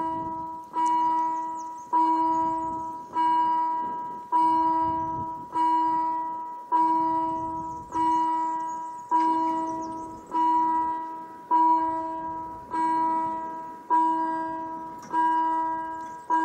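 Level-crossing warning bell striking about every 1.2 s, each stroke ringing out and fading before the next. It is the warning that the crossing is closing for an approaching train: the lights have switched from yellow to red and the barrier is lowering.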